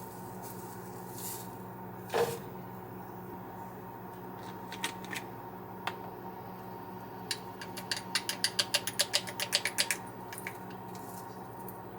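Indoor handling sounds over a steady hum: a sharp knock about two seconds in, a few scattered clicks, then a quick run of small sharp clicks, about seven a second, lasting about two seconds near the end.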